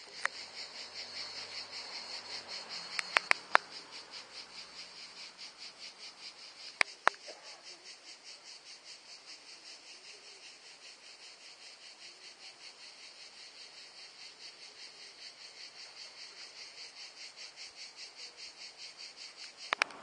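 Cicadas singing: a steady, high, rapidly pulsing buzz, about four pulses a second. A few sharp clicks sound about three seconds in and again about seven seconds in.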